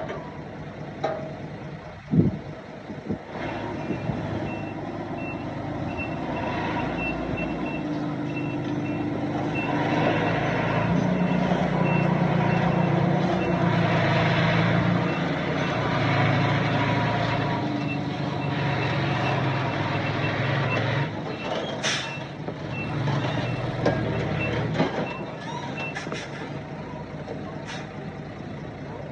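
Heavy construction vehicle backing up, its reversing beeper sounding a quick, steady series of high beeps over the diesel engine, which grows louder in the middle and then eases. A sharp knock comes about two seconds in.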